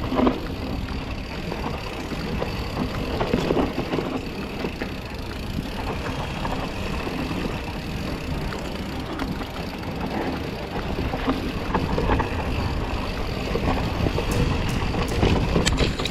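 Mountain bike riding fast down a dry dirt trail: a steady rumble of tyres on dirt and air rushing past, broken by frequent rattles and knocks of the bike over bumps.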